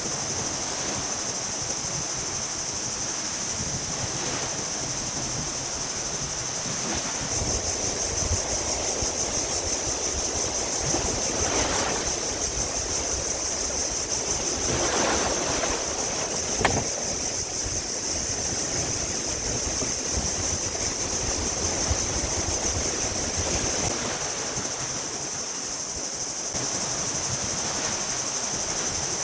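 Sea waves washing up on the beach, swelling twice about halfway through, under a steady high-pitched buzz of insects; one sharp click about 17 seconds in.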